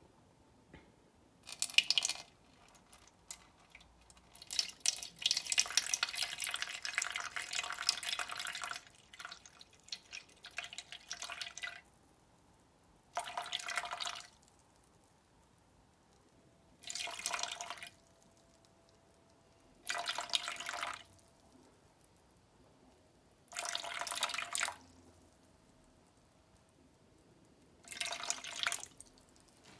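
Water poured into a plastic bowl in a series of separate pours with pauses between them: a long pour of several seconds near the start, then short splashing trickles of about a second each, the water being weighed out a little at a time.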